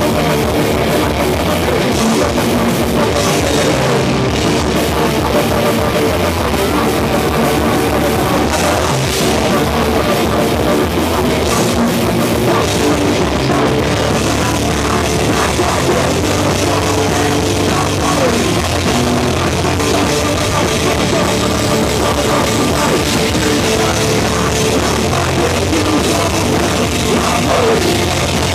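Crossover thrash band playing loud live metal: distorted electric guitars over a drum kit.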